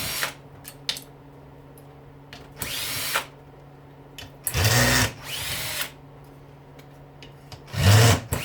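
Power drill/driver run in short bursts to back out screws from a dishwasher motor, each burst spinning up and winding down, with a few small clicks in between.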